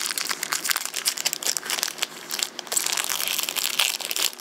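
Foil Yu-Gi-Oh! booster pack crinkling in the hands as it is handled and opened: a dense, irregular run of crinkles that eases briefly about two seconds in.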